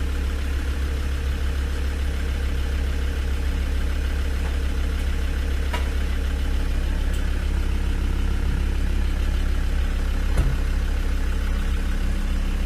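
Land Rover Discovery 2 Td5's five-cylinder turbodiesel engine running steadily in drive, the wheels turning freely with the car up on a lift, heard from inside the cabin. A single knock sounds about ten seconds in.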